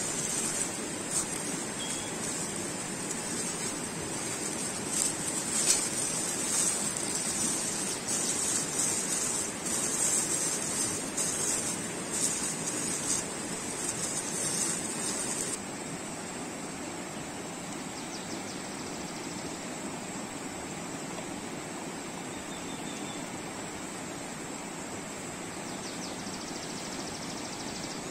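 Steady rushing of a mountain stream. Over it, for the first half, close crinkling and rustling of paper being rolled around a fish and hands working through salt, which stops about halfway through.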